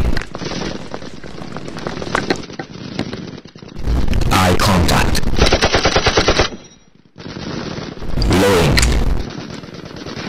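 Rapid automatic gunfire in several bursts, with two loud sustained bursts in the middle and near the end and a brief sudden break between them.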